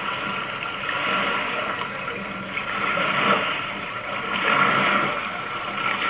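Water sloshing and lapping at the shoreline, an even rushing wash that swells and fades every second or two.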